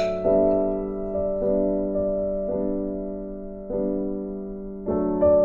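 Background music: a piano playing slow, gentle notes, each struck and left to fade.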